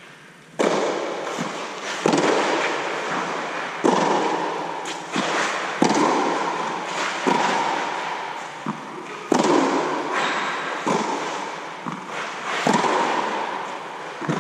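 A tennis rally: tennis balls struck by rackets and bouncing on a clay court, a sharp pop about every one and a half seconds from about half a second in. Each hit rings on in a long echo under the fabric of an inflatable air dome.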